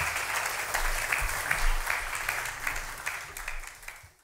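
Audience applauding with dense clapping that fades out over the last second and cuts off near the end.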